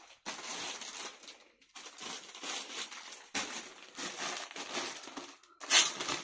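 Clear plastic packaging bags crinkling as packed dress-material sets are handled, in several stretches of crackling with short pauses between, the loudest near the end.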